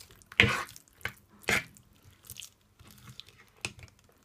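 Corned beef and flour fritter batter being stirred by hand: several separate, uneven stirring strokes, the two loudest about half a second and a second and a half in.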